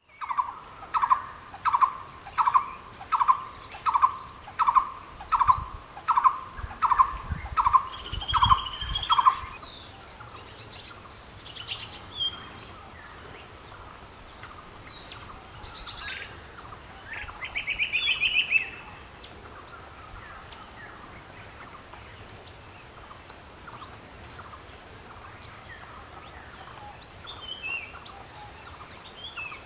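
A bird repeating a loud low call note over and over, roughly four notes every three seconds, for about the first nine seconds, then stopping. After that, scattered high chirps and twitters from other birds, with a short fast trill about 17 seconds in.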